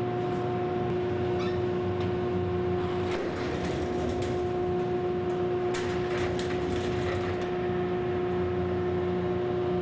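A steady machine hum with a held whining tone over it. A cluster of light clicks and rattles comes in the middle.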